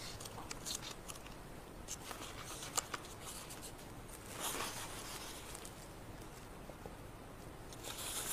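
Quiet handling of a paper notebook: soft rustles of pages being leafed through and a few small clicks, with a louder rustle about halfway through and again near the end.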